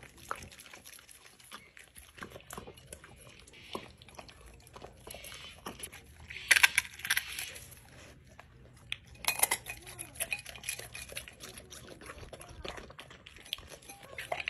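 A dog eating wet raw food from a plate: licking, lapping and chewing, with the plate clinking and scraping against the concrete floor as it is pushed around. The sounds come in irregular bursts, loudest about halfway through and again a few seconds later.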